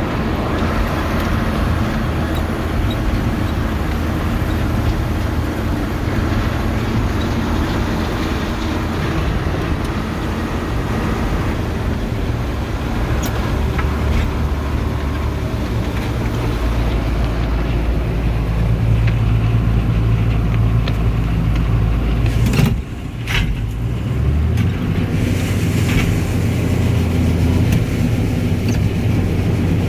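Tractor engine running steadily under load while pulling a loaded grain wagon, heard from inside the cab. About 23 seconds in there is a sharp click and a brief drop in engine sound, after which the engine settles at a slightly different pitch.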